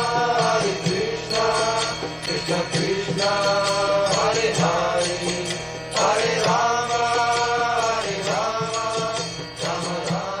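Devotional chant music: a singing voice in long, held phrases over a steady instrumental beat.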